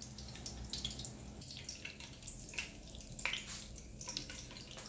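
Pork lard melting in a hot non-stick pot, with quiet, irregular small crackles and pops.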